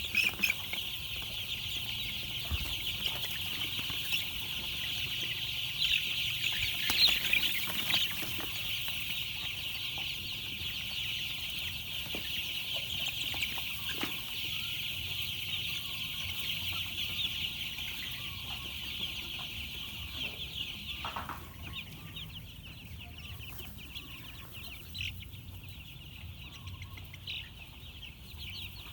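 A brood of young chicks peeping all together, a dense, continuous high-pitched chorus that grows a little quieter in the last third.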